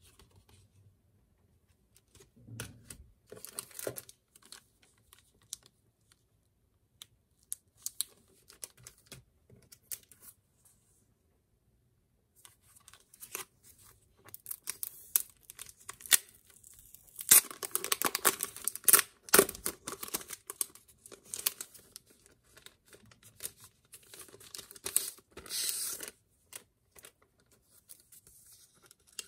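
Plastic sleeves and packaging crinkling and rustling as they are handled and opened by hand, in short irregular bursts. The loudest stretch comes a little past halfway, with another burst later on.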